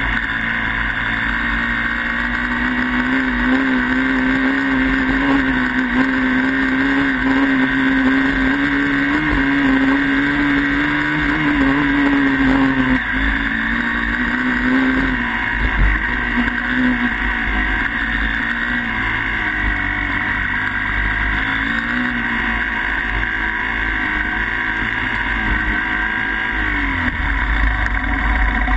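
Dirt bike engine running while riding, its pitch climbing slowly for about twelve seconds, then wavering up and down as the throttle changes and dropping away near the end. Wind rumbles on the microphone throughout, heaviest near the end.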